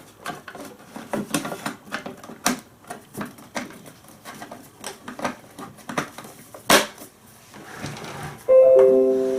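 Plastic clicks and knocks as the back cover of a CMC-6 receipt-style printer is pressed back into place, one sharp snap standing out. Near the end a short chime of three tones stepping down in pitch sounds.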